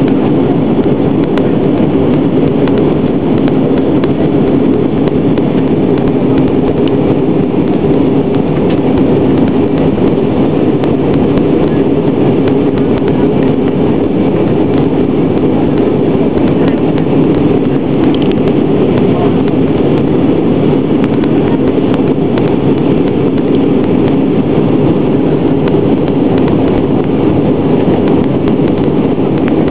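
Cabin noise of a jet airliner in flight, heard inside the cabin. Engine and airflow noise blend into a deep, even drone that does not change.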